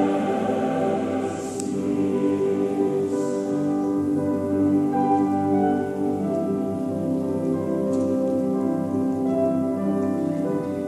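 A large choir singing slow, sustained chords that shift about once a second, heard in a reverberant concert hall.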